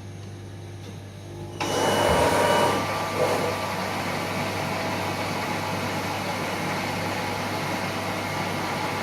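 Hermle UWF 900 E universal milling machine switched on about a second and a half in: a low hum gives way suddenly to a loud whir, strongest for about a second, then running steadily.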